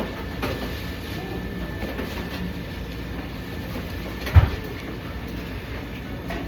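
Steady low rumble of a restaurant's background noise with faint clatter, and one loud, dull thump about four seconds in.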